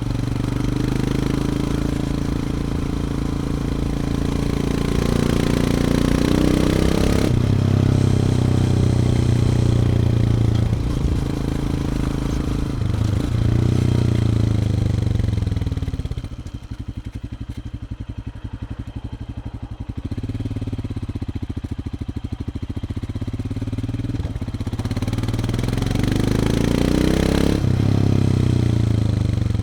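Onboard sound of a 2020 Royal Enfield Himalayan's 411 cc single-cylinder engine through its standard exhaust, riding under throttle with revs climbing and shifting through the gears. About halfway through the throttle closes and the revs fall away. It then pulls up through the revs again and eases off near the end.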